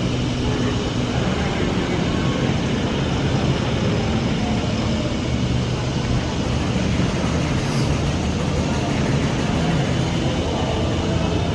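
Steady amusement-park din: a low, even mechanical hum with faint distant voices, and one short high hiss about eight seconds in.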